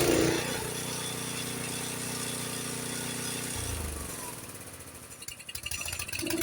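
Honda HS724 snowblower's single-cylinder engine running steadily at fast throttle, then dying about three and a half seconds in as the throttle lever is pushed into the choke position, with a few weak sputters after. The fully closed choke floods and chokes out the engine.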